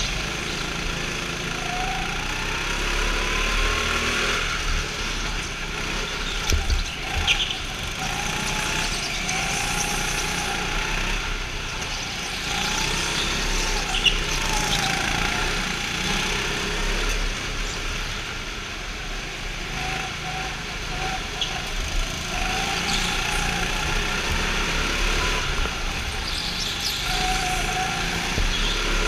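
Go-kart engines running at race speed, heard on board a kart, their pitch rising and falling with the throttle through the corners. A few short sharp knocks, the loudest about halfway through.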